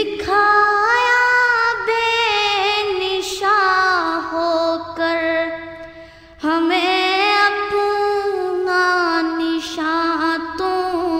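A single high voice singing a devotional Islamic song unaccompanied, in long, ornamented phrases, with a brief pause about six seconds in.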